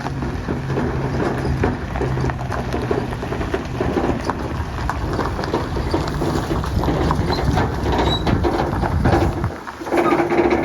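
Steady rushing noise over a low engine hum, with a brief drop near the end.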